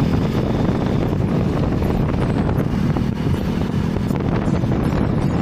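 Wind rushing over the microphone on a moving motorcycle, with the motorcycle's engine running steadily underneath.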